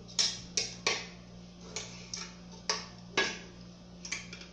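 A utensil clicking and scraping against the inside of a pressure cooker pot as food is lifted out: about eight sharp, irregular taps.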